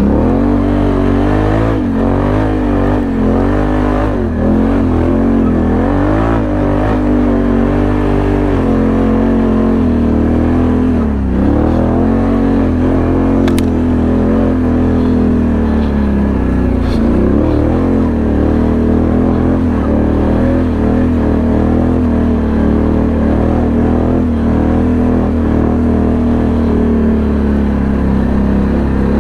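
1000 cc V-twin ATV engine running under load while being ridden, its pitch rising and falling with the throttle through the first half, then running steadier.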